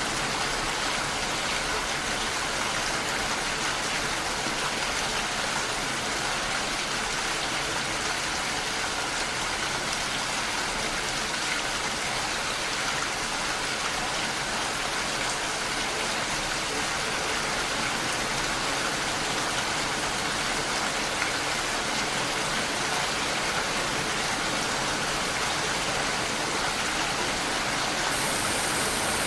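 Steady rain falling as an even, unbroken hiss. The very highest part of the hiss brightens slightly near the end.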